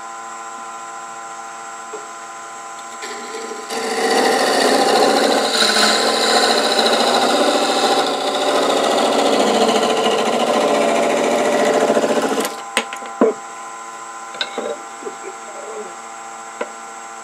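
A 1/8-inch parting tool cutting into a small wooden piece spinning on a Nova wood lathe: a loud scraping hiss starts a few seconds in and stops after about nine seconds as the piece is parted off, followed by a few sharp clicks. Under it the lathe's motor hums steadily.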